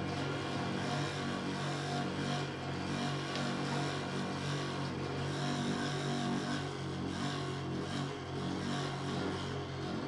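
Prepared, amplified hurdy-gurdy sounding a steady, buzzing drone with many overtones, its low notes pulsing and wavering.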